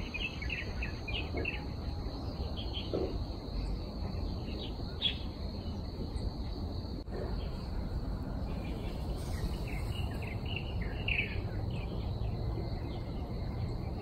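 Rural field ambience: a steady high-pitched insect drone with birds chirping in short bursts, busiest near the start and about two-thirds through, over a low background rumble.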